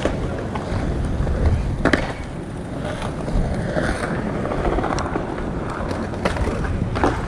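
Bicycle riding over pavement: a steady rumble of tyres and air noise, with a few sharp clatters, about two seconds in and again near the end.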